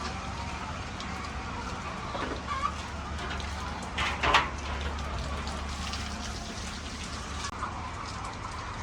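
Chickens clucking, with scattered short calls and a louder call about four seconds in, over a steady low hum.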